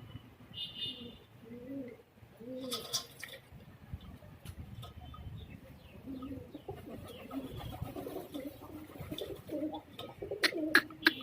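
Domestic pigeons cooing, several birds overlapping in low, rolling coos that grow busier in the second half, with a few sharp clicks near the end.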